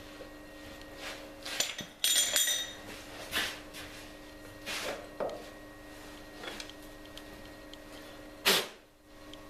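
Steady machine hum in a workshop with scattered knocks and clicks of metal being handled. About two seconds in, a metallic clink rings for about half a second, and a loud sharp knock comes near the end.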